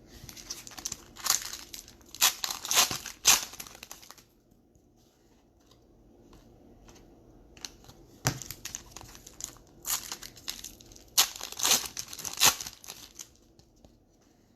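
Foil trading-card pack wrappers being torn open and crinkled by hand, in two bouts of crackling with a quiet pause between.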